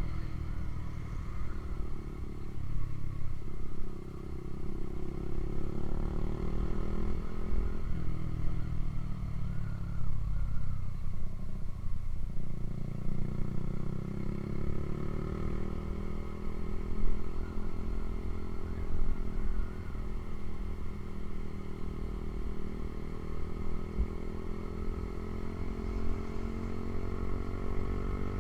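Honda CB150R's single-cylinder engine running through a Ronin aftermarket exhaust while riding, its pitch rising and falling as the bike speeds up and eases off.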